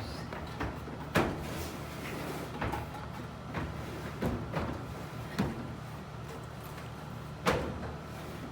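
Maytag dryer drum being pushed in and turned by hand onto its support rollers: irregular knocks and clicks, the loudest a little over a second in and near the end, over a steady low hum.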